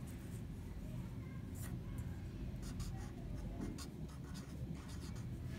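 A marker writing on paper, a series of short strokes as a word is written out by hand.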